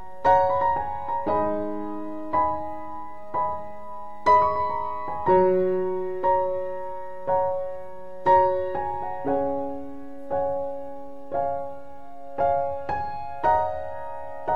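Slow background piano music: a note or chord is struck about once a second and each one rings on and fades, with a few quicker notes in between.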